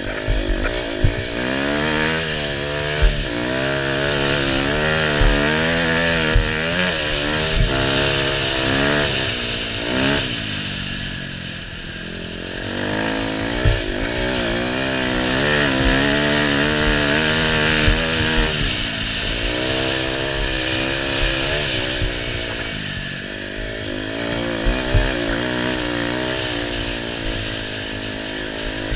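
KTM 250 EXC two-stroke dirt bike engine revving up and falling back over and over as the rider opens and closes the throttle through the sand, with brief dips where it backs off. Short low knocks from the bike over bumps and wind rush on the microphone are heard along with it.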